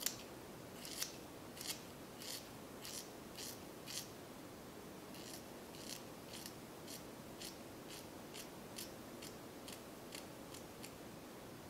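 Hair-cutting shears snipping the ends of a long straight human-hair wig. The snips are faint and crisp, about two a second, some twenty in all, and stop shortly before the end.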